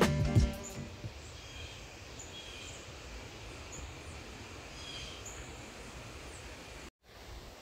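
Quiet outdoor morning ambience: scattered short, high bird chirps and calls over a low, even background hush. Music cuts out in the first second.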